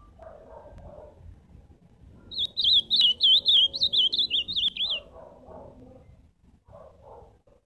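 Male ultramarine grosbeak (azulão) singing one fast, warbling phrase of rapid up-and-down whistled notes, starting about two seconds in and lasting about three seconds.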